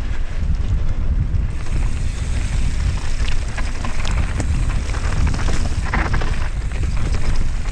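Mountain bike descending a rough trail at speed: wind buffets the microphone with a heavy rumble while the bike rattles and clicks over the bumps, with a brief hiss about six seconds in.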